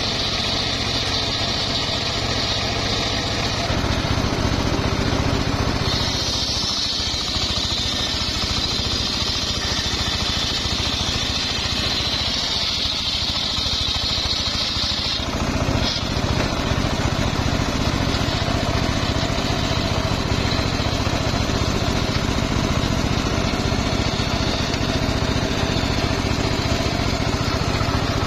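Engine-driven homemade circular saw bench ripping a log lengthwise. The engine runs steadily while the blade cuts through the wood, and a high hiss of the cut comes and goes, strongest from about six to fifteen seconds in.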